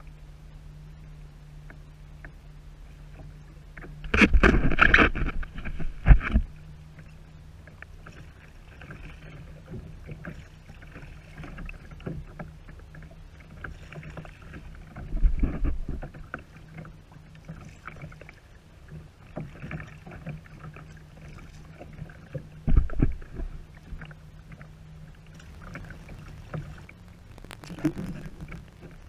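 Kayak on choppy water: water lapping and sloshing against the hull over a steady low hum, broken four times by louder splashing and knocks from the paddle and the boat being moved, the loudest about four to six seconds in and ending in a sharp knock.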